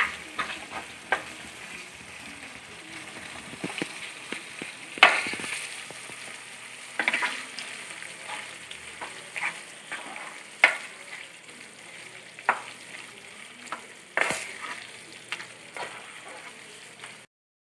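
Gooseberry pieces sizzling in bubbling, oily pickle masala in a non-stick pan while a spatula stirs them, scraping and knocking against the pan every second or two. The sound cuts to a brief silence near the end.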